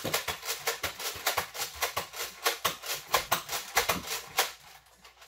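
Nerf blasters firing foam darts in quick succession: a rapid, irregular run of sharp clicks and snaps, about five a second, that stops near the end.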